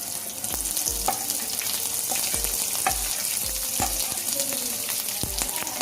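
Chopped onions frying in hot oil in a pan with a steady sizzle, while a spatula stirs them, knocking and scraping against the pan about twice a second.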